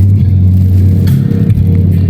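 Steady, loud low drone inside a moving pickup truck's cab: engine and road noise while driving.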